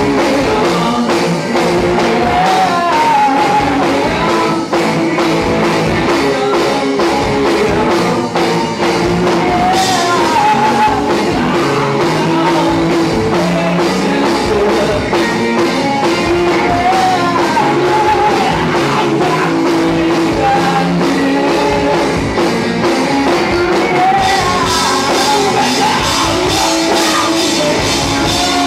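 Live rock band playing: electric guitars, electric bass and a drum kit, with singing over them. The cymbals and high end grow brighter near the end.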